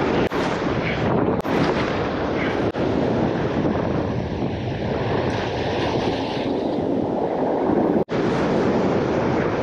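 Wind buffeting the microphone over surf washing across a rock ledge: a steady rushing noise, broken by a few brief gaps.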